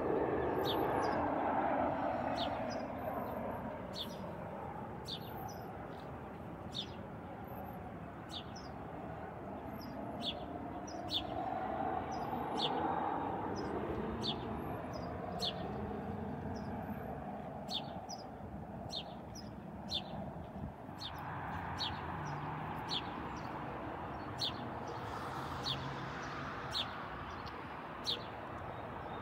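Distant jet airliner noise, a broad rushing hum that slowly swells and fades as the aircraft moves. Over it, a small bird gives short high chirps about once a second.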